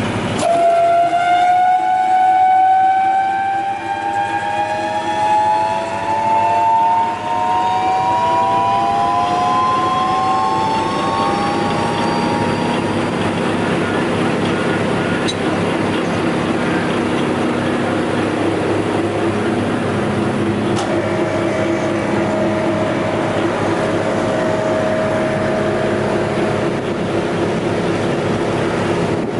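ŻEFAM DDRBA 44 wood chipper-shredder starting up on its electric motor: a whine rises in pitch over about the first ten seconds as the rotor spins up. It then runs steadily at full speed with no wood being fed.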